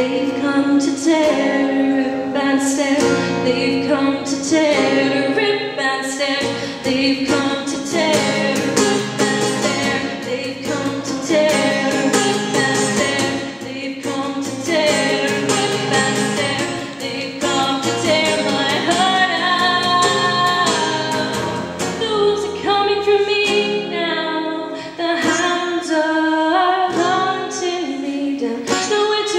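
A woman singing a song live, accompanying herself on a strummed steel-string acoustic guitar.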